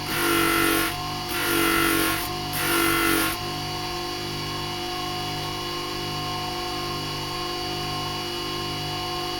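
A motor-driven deburring wheel spinning with a steady hum, with a steel knife blade pressed against it in three short grinding passes of just under a second each to knock the sharp corners and scale off the blade. After the third pass the wheel runs on alone.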